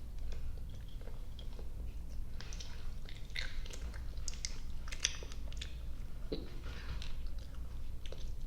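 Close-miked chewing of soft, sticky gummy and marshmallow candy: irregular wet smacks and mouth clicks, with a steady low hum underneath.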